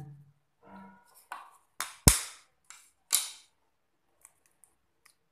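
A few sharp knocks, the loudest about two seconds in and another about a second later, then a few faint clicks: an egg being knocked against the rim of a mixing bowl to crack it.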